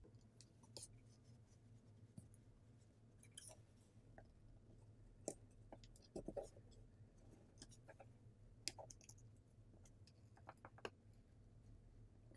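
Faint, scattered clicks and short scratches of a plastic pry pick working around the edge of a Google Pixel 7a's plastic back plate, prying the glued plate off.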